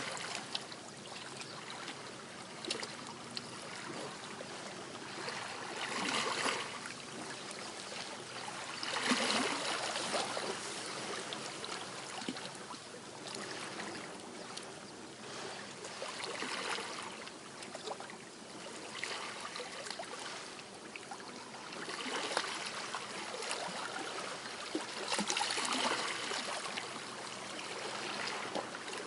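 Gentle sea waves washing onto the shore, a steady wash that swells every few seconds as each wave comes in.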